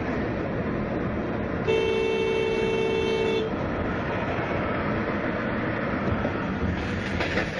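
Car horn sounding once, a steady two-tone blare held for about a second and a half, over the road noise of a moving car heard from inside the cabin.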